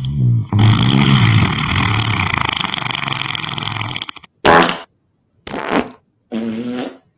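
Fart noises: one long, wavering fart lasting about three and a half seconds, then three short farts with gaps between them.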